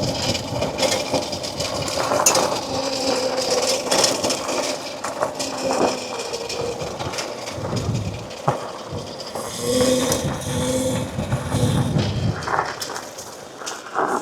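Electric mini bike riding, with a steady motor whine and clicking and rattling from the drivetrain, a noise the rider suspects comes from the chain.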